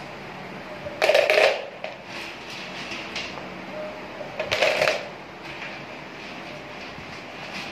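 White aquarium pebbles scraped up in a blue plastic container and clattering against it and the glass tank, with two loud scoops about a second in and again midway, and lighter pebble clicks between.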